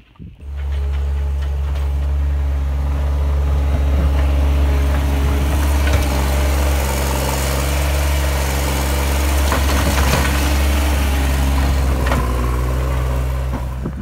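New Holland L150 skid steer's diesel engine running steadily while it works, starting abruptly about half a second in.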